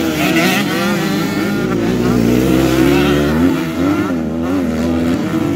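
Motocross dirt bikes racing on a dirt track, their engines revving up and down continuously as the riders work the throttle.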